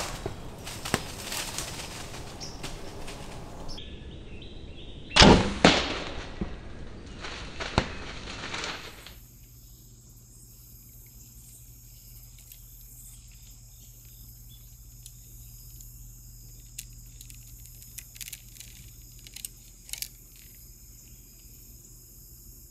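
A loud sharp report about five seconds in, with smaller cracks around it over a rustling hiss. From about nine seconds on it is much quieter, with a steady low hum and a few faint ticks.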